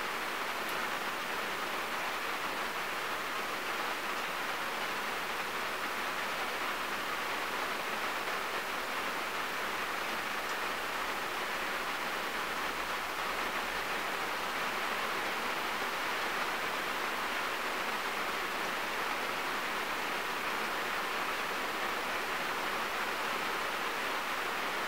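Steady rain falling on a car, heard from inside the car: an even hiss with no single drop hits standing out.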